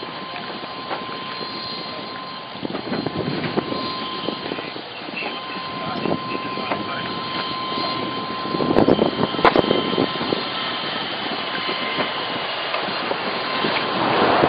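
Cardboard boxes being handled and set down as a truck is unloaded by hand: scattered knocks and thuds over a steady rushing background noise, with a louder cluster of knocks about nine seconds in.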